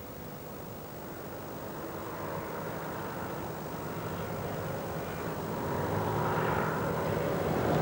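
Microlight aircraft engine and propeller droning steadily, growing louder throughout.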